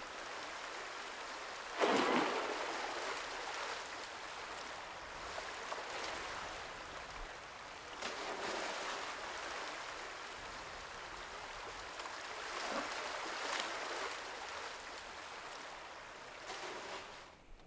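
Shallow stream running, with water poured from a bucket into plastic drums in several gushes; the loudest comes about two seconds in.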